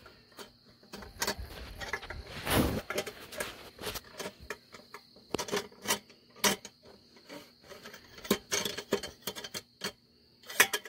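Irregular light clicks and taps of a stiff steel wire being worked through aluminium soda cans and their pull tabs, with a louder rustling scrape about two and a half seconds in.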